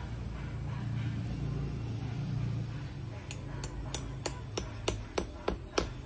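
A quick run of about ten sharp knocks, roughly three a second, starting about halfway in, made by hand work at the base of a bird's nest fern mounted on a post. They sound over a low steady rumble.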